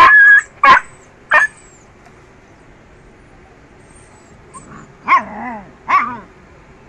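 Injured dog yelping and crying in pain as its open leg wound is treated: a loud cry at the start, two short sharp yelps in the next second and a half, then two more wavering cries near the end.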